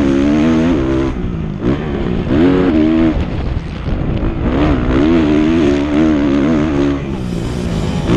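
Kawasaki motocross bike's engine heard from on board, revving up and down as the rider works the throttle around a dirt track, with brief drops in revs about a second in, around three seconds and near the end.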